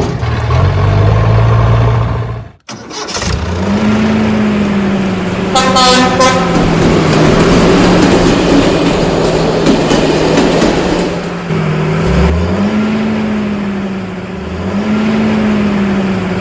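A vehicle engine running with a few brief rises in pitch, like short revs. A short horn toot sounds about six seconds in, and the sound drops out briefly near the start.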